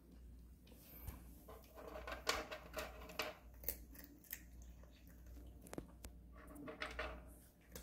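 A cat chewing and crunching dry treats: faint, irregular crisp crunches and clicks.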